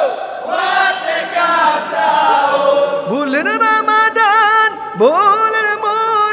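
Men's voices chanting together without instruments in an Acehnese sahur-waking chant. About three seconds in, a single male voice on a microphone takes over, sweeping up into a long, ornamented line with a wavering vibrato, and rising again near the end.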